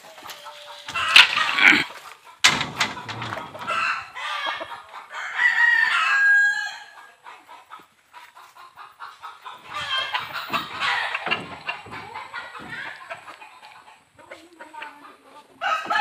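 Native chickens clucking and a rooster crowing in several bursts, one call held steadily before breaking off about seven seconds in, with scattered knocks and rustling from handling the wooden pen.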